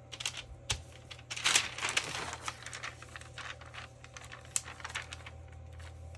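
Paper rustling and crinkling, with light taps and clicks, as loose paper pieces are picked through and handled. A denser, louder rustle comes about one and a half seconds in.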